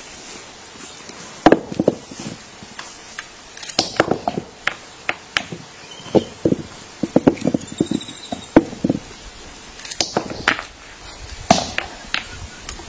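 Irregular sharp knocks in uneven runs, some in quick bursts of several strokes: a monkey striking a nut with a hammer stone on a stone anvil.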